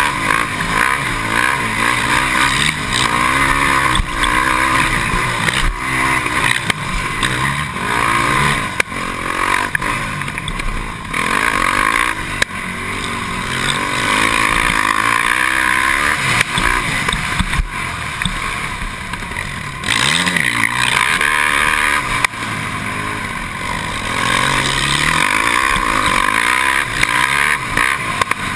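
A 450cc single-cylinder four-stroke sport quad's engine, heard from on the machine, revving up and down again and again as it is ridden hard round a motocross track, with short drops as the throttle is closed for turns and shifts.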